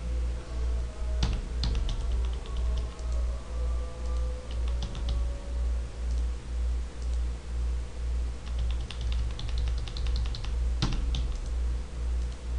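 Computer keyboard and mouse: scattered clusters of light key taps and a couple of sharper clicks, one about a second in and one near the end. Underneath runs a low hum that swells and fades about twice a second.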